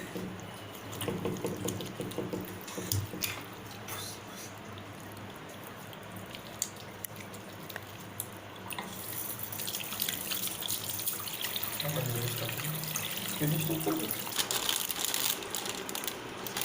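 Water running steadily, like a tap into a sink, with scattered small clicks; it grows brighter and a little louder about nine seconds in.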